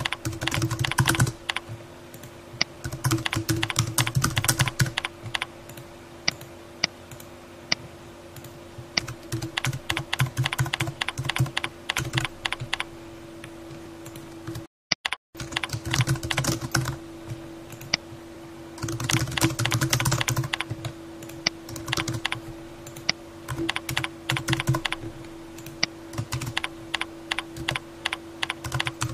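Computer keyboard typing in quick bursts, with single key taps in the pauses between them, over a steady low hum. About halfway through the sound cuts out completely for a moment.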